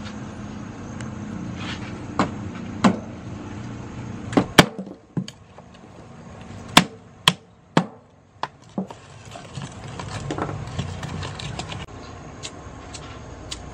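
Lumps of charcoal clacking against each other and knocking into a clay charcoal stove as they are loaded in by hand, about ten sharp separate knocks. Near the end a softer, denser rustle and crackle as paper is pushed in among them.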